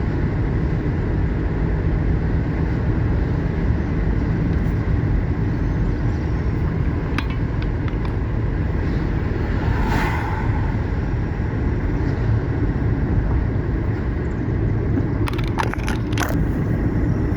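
Car driving steadily, heard from inside the cabin: a constant low rumble of engine and tyre noise. A brief hiss comes about ten seconds in, and a few faint clicks come near the end.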